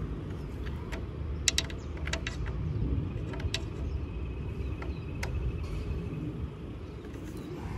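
A few sharp clicks from a hand tool working the stainless screws that fasten a boat's toerail, scattered over a low steady rumble.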